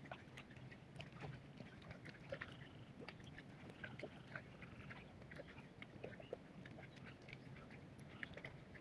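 Faint scattered splashes and squelches of mud and water as rice seedlings are pushed by hand into a flooded paddy, with faint animal calls a few seconds in and again near the end.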